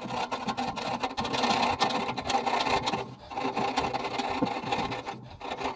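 Small hacksaw cutting through the end of the compressor's metal air pipe in a quick run of short strokes, with brief pauses about three and five seconds in. The cut trims off the section of pipe that the old olive had compressed, so that a new olive can seal.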